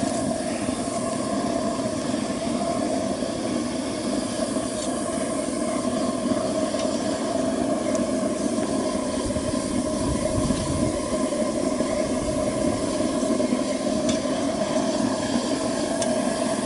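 Waste-oil burner on a homemade barrel furnace, fired on propane for now, with the flame giving a steady, even rushing noise that neither rises nor falls.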